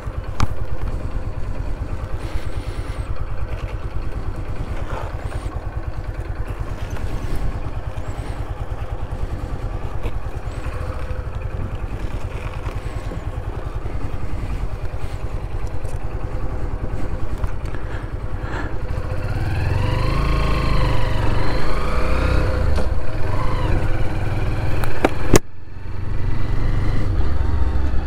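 Honda motorcycle engine running at low revs, then revving up and down about two-thirds in as the bike accelerates. A sharp click near the end.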